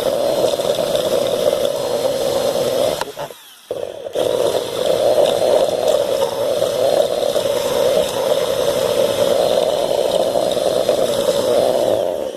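Electric drill with a wood rasp bit running steadily, grinding into PVC pipe to scuff up its surface. It stops for about a second around three seconds in, starts again, and cuts off near the end.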